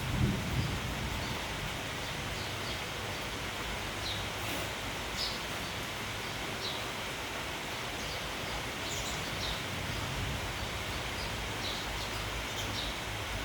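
Steady hiss of rain and wind, with short high chirps of sparrows scattered throughout.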